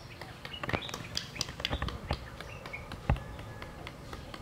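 Irregular clicks and knocks of kitchen utensils being handled, the loudest about three seconds in, with birds chirping in the background.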